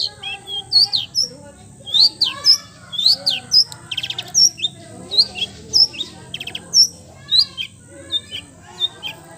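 Songbird chirping: a rapid, loud jumble of short sharp chirps that sweep upward, with a quick rattling trill about four seconds in.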